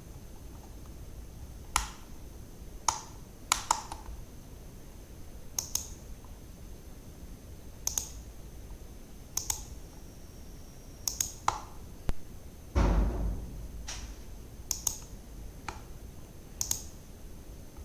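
Computer mouse clicking at irregular intervals, about a dozen single and paired clicks a second or two apart. A louder dull thump comes about two-thirds of the way through, with a faint steady high whine underneath throughout.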